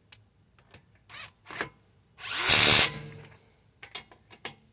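Ridgid R872081 brushless subcompact impact wrench on a car lug nut in auto mode: a few light clicks, two short spins about a second in, then a loud burst of hammering lasting under a second. The auto mode stops hammering early and leaves the lug nut under-tightened.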